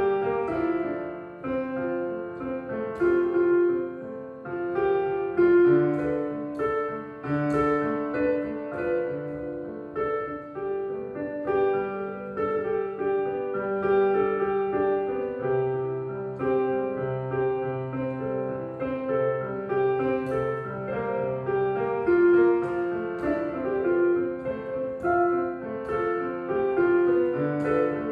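Street piano played by hand: a melody over chords and low bass notes.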